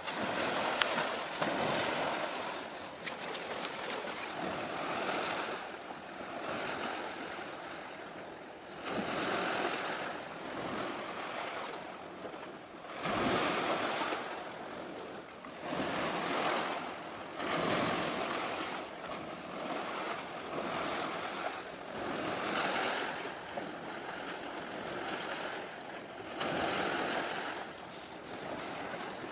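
Small sea waves washing against the shore in irregular surges every couple of seconds.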